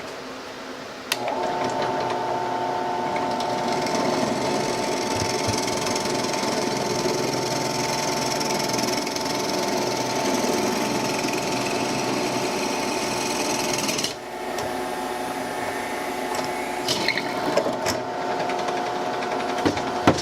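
Electric drill running a 3/8-inch bit through 2x4 wood, a steady motor whine that starts about a second in. It stops briefly about two-thirds of the way through, then runs again, with a few knocks near the end.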